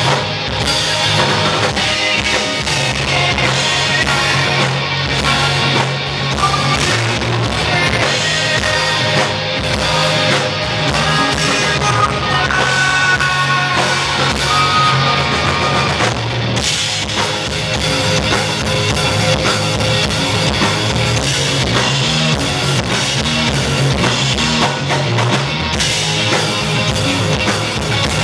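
Live rock band playing an instrumental passage: electric bass, electric guitar and drum kit, loud and continuous.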